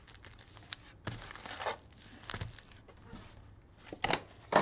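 Foil trading-card packs crinkling and the cardboard of a 2023 Bowman Hobby box rustling as the packs are lifted out and stacked, in scattered short bursts, the loudest near the end.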